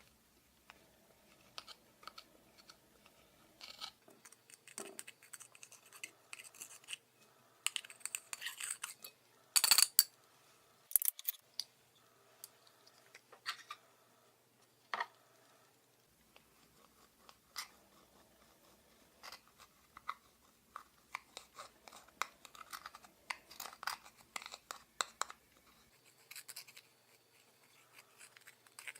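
Clear slime being worked and mixed by hand: irregular sticky clicks, pops and scratchy crackles, with a louder cluster of them about a third of the way through.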